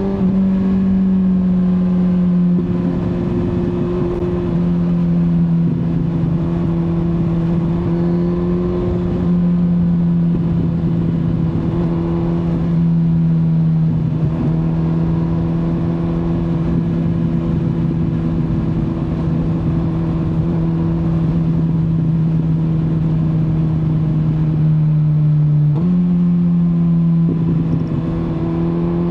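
Kawasaki Z900 inline-four engine running under way at steady revs, the engine note sinking slowly through the middle, then jumping up abruptly near the end.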